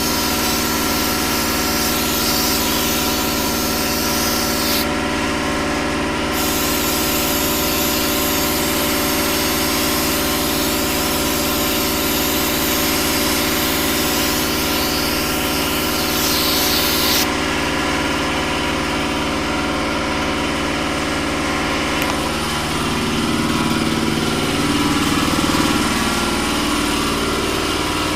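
Compressed air hissing from a blow gun, clearing debris off the engine, over the steady hum of a running motor. The hiss cuts off sharply about five seconds in, starts again a second later, and stops again about seventeen seconds in while the hum carries on.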